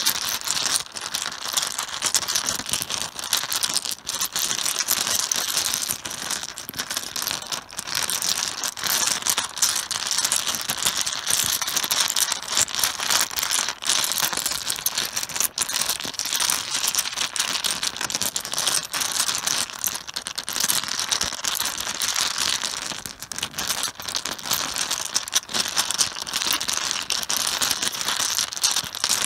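Mahjong tiles clattering against each other on a cloth-covered table, a dense, unbroken stream of small clicks as the tiles are shuffled.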